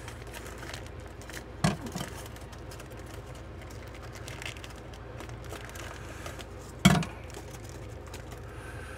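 Plastic packaging around a cod fillet crinkling as it is handled and snipped open with scissors, with two short sharp knocks about five seconds apart, the second the louder, over a steady low hum.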